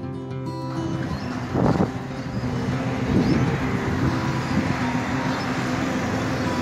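Road traffic noise, steady, with louder swells of vehicles passing at about two seconds and three seconds in. Acoustic guitar music cuts off under a second in.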